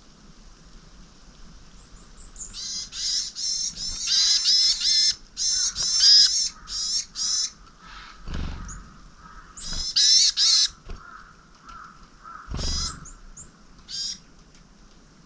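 Small wild birds calling in quick runs of high, wavering notes, in two main bouts, with a couple of single calls after. Two dull low thumps come in between.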